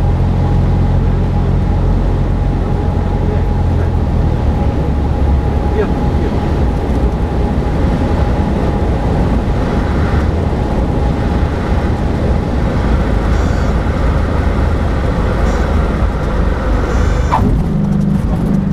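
Cessna 172 cabin noise on landing: the engine and propeller run steadily over wind noise, and the low engine note changes about four seconds in. A sharp knock near the end marks the wheels touching down on the runway, and the roll-out noise follows.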